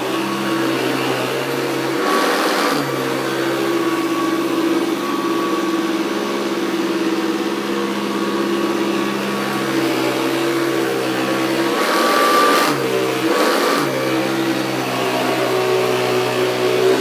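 Hoover Professional Series commercial upright vacuum running on carpet, its brush roll driven by a new Hoover industrial belt, with a steady motor hum. Its low hum briefly drops out under a burst of hiss about two seconds in, and again twice around twelve to fourteen seconds.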